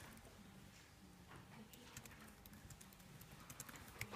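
Near silence: room tone with a faint steady hum and scattered faint clicks and taps.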